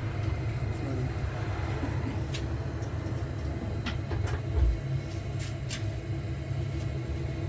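Ferroli combi boiler running on hot-water demand: a steady low rumble of the burner and fan with a faint hum, a few light clicks, and a soft low thump about four and a half seconds in.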